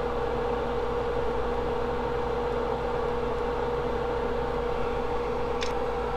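Steady electrical hum with a constant mid-pitched whine over a soft hiss, like a small fan or bench electronics running. A faint click comes near the end.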